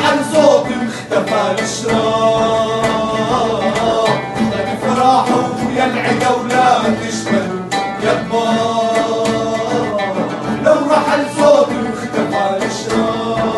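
Male voices singing an Arabic song together, accompanied by a nylon-string classical guitar, an oud and a hand-played frame drum.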